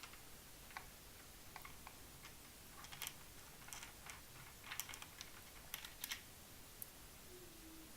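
Faint, scattered small metal clicks and taps from an Allen key working the blade nut of a Ryobi One+ 18V cordless circular saw, the clicks thickest in the middle few seconds.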